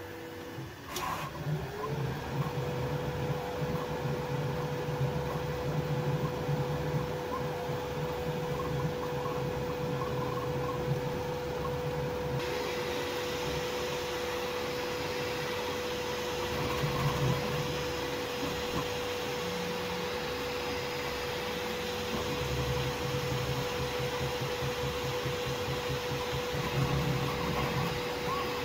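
Bambu Lab P1S 3D printer running a print: a steady fan hum whose tone rises and settles about two seconds in, over a lower buzz that comes and goes as the print head moves. A single click about a second in.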